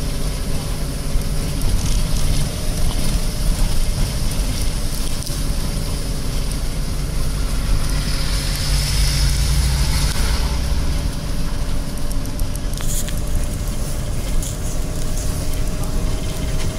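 Inside a Toyota Coaster minibus on the move: steady engine rumble and tyre road noise with a faint steady whine. A louder rush of noise rises and fades about halfway through.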